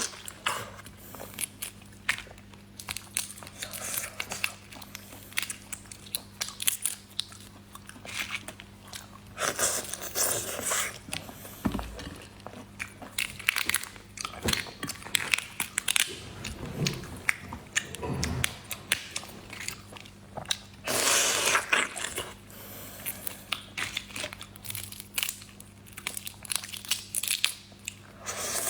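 Close-miked eating sounds of seafood: repeated crunchy bites and chewing, with longer crackly stretches about a third of the way in and again about three quarters of the way through. A faint steady hum runs underneath.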